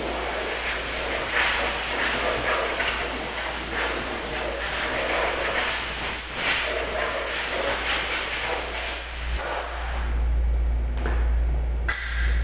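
Compressed air hissing from an air-hose blow gun as it blows dust off a lawn tractor, the blast wavering in strength. It stops about ten seconds in, with a couple of short blasts near the end.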